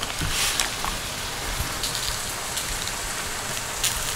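Onions frying in oil and butter in a hot pan: a steady sizzle with a few faint ticks.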